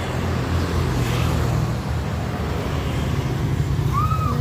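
Steady low rumble of motorbike engines and road traffic. A short tone rises and falls near the end.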